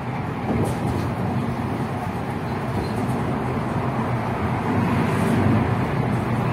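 City bus running along the road, heard from on board: a steady engine rumble with road noise, swelling a little about half a second in and again around five seconds.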